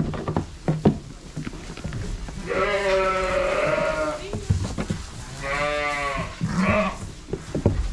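Sheep bleating in a barn: two long drawn-out calls and a short one, with a few sharp knocks in the first second.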